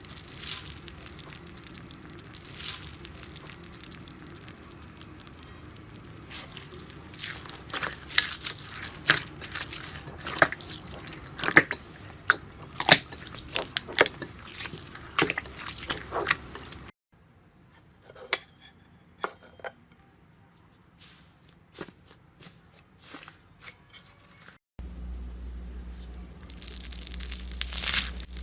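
Slime being squeezed and poked, giving crunchy crackles and small wet pops. They are densest and loudest through the middle, go quieter after a cut, and pick up again near the end.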